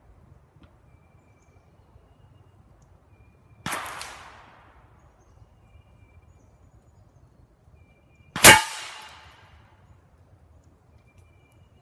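Two shots from a Ruger Single Six .22 LR revolver, about five seconds apart, each trailing off in a short echo; the second is the louder.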